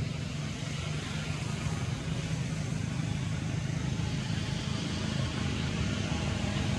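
A steady low rumble under an even hiss, with no separate sounds standing out.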